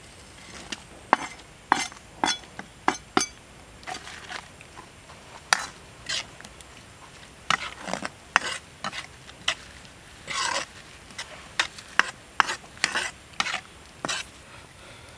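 Metal ladle clinking and scraping against a steel wok while chopped vegetables are stirred into sauce. The strokes are sharp and irregular, some single knocks and some short scrapes.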